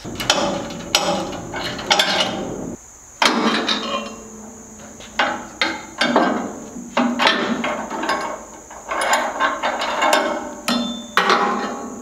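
Hand tools on the steel frame of a portable band sawmill: a ratchet wrench clicking on the mount bolts and repeated sharp metal clanks and knocks as the push-bar mount is worked loose and shifted.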